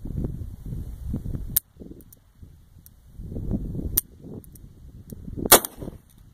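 Model 1874 Italian service revolver (Chamelot-Delvigne system): two sharp hammer clicks, about a second and a half and four seconds in, then one loud gunshot near the end as the reloaded cartridge that had misfired finally goes off. Low wind rumble on the microphone underneath.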